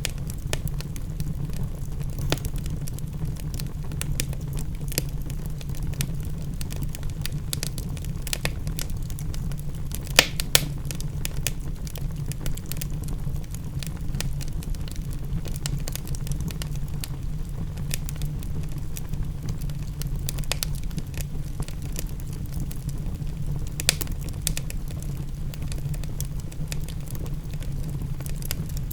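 Wood fire crackling and popping in a fireplace, with irregular sharp snaps over a steady low rumble; two louder pops come close together about ten seconds in.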